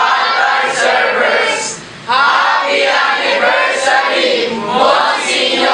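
A group of teenage boys singing together, with a short break about two seconds in before the singing resumes.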